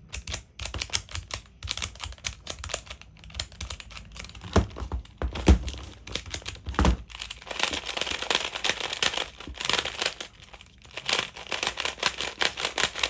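Plastic tiles of a Rubik's Cube sliding puzzle being pushed rapidly back and forth: a fast, uneven run of clicks and scraping, thickest about eight to ten seconds in.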